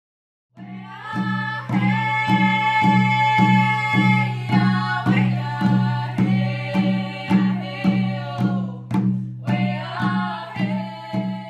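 Opening background music: a steady low drone under an even drumbeat of slightly under two strokes a second, with held melody notes above. It starts about half a second in.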